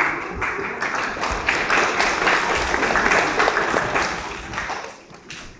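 Audience applauding, many hands clapping. The clapping builds, is loudest around two to three seconds in, and dies away about five seconds in.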